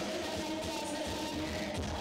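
Dance music playing loud over a party sound system, with a pulsing bass.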